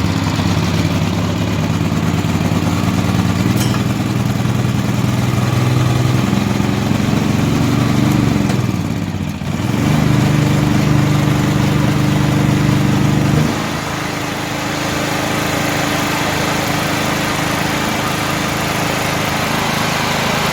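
Kirloskar iGreen petrol portable generator's engine running just after a manual start with the choke on, its speed shifting up and down several times, with a brief dip and then a louder, higher stretch, before it settles to a steadier, quieter run about 13 seconds in.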